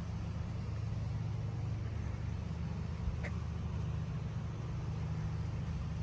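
Steady low mechanical hum, like a running motor or traffic, unchanged throughout, with one brief faint high chirp or click about three seconds in.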